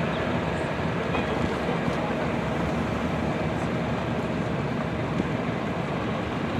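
Several vintage farm tractor engines running together at low speed, a steady mixed engine sound from the line of tractors.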